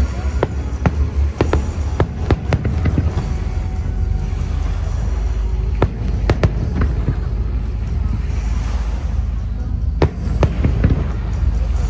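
Aerial fireworks bursting: a string of sharp bangs and cracks over a steady low rumble. The bangs come thick in the first three seconds, with a few more loud ones about six and ten seconds in.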